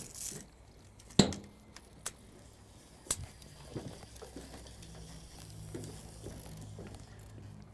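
A few sharp clicks and knocks, the loudest about a second in and another about three seconds in, then a faint steady low hum that sets in about five seconds in.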